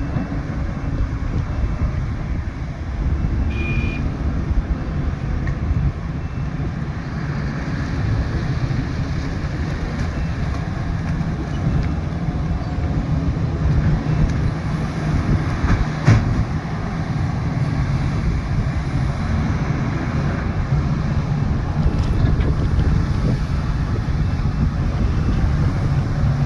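Heavy diesel mining machinery, a large hydraulic excavator and a haul truck, running steadily with a deep engine rumble. A short high beep sounds about four seconds in.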